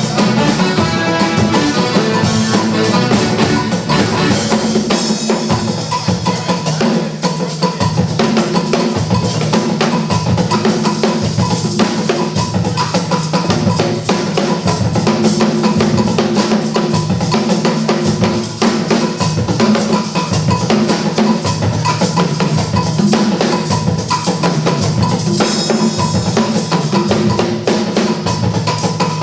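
Music with a drum kit playing a steady, fast beat of kick and snare over a sustained bass line.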